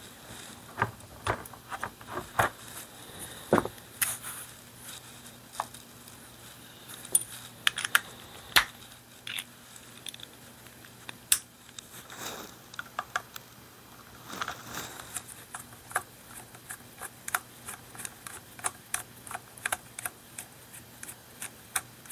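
Small metal clicks, taps and a few scrapes as a pump-action .22 rifle is handled and taken apart with a screwdriver. In the last several seconds the clicks come quicker and more evenly.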